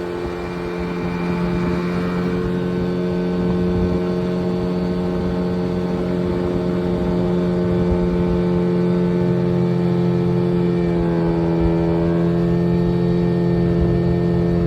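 Engine of a moving motor vehicle droning at a steady speed over a low rumbling noise, its pitch sagging slightly about eleven seconds in.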